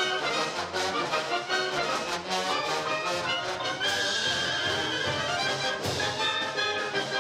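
Wind band playing live, with woodwinds, saxophones and brass together. A high note is held for about two seconds from about four seconds in.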